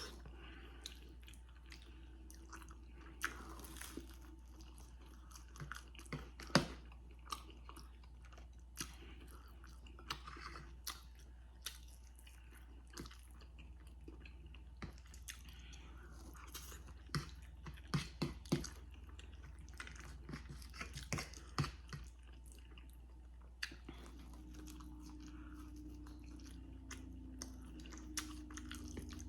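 Close-miked mukbang eating: chewing with wet mouth smacks and scattered sharp crunches and clicks.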